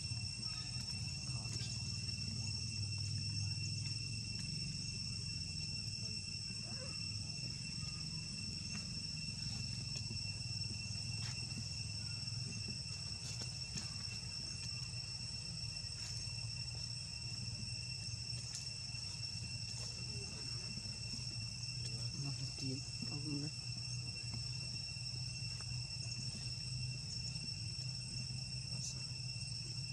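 Insects singing in a steady, high-pitched drone that never breaks, over a low background rumble.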